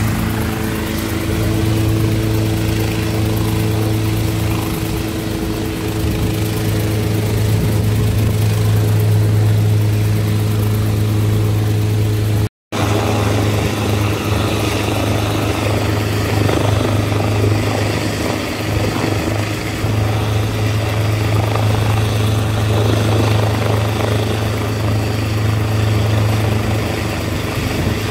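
Zhonglian F27 ultralight helicopter's engine and rotor running in a steady drone during a factory test flight, with the helicopter lifting into a low hover over the helipad. About halfway through, the sound drops out for a moment and then resumes.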